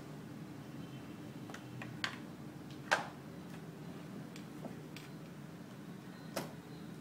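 Small plastic cosmetic bottles, tubes and pencils clicking and knocking against each other as a hand rummages through a drawer: a handful of scattered sharp clicks, the loudest about three seconds in, over a steady low hum.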